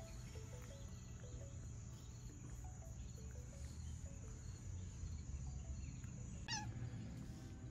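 Quiet outdoor ambience with faint background music of short stepped notes, a steady high insect drone and a low rumble. One short animal call sounds near the end.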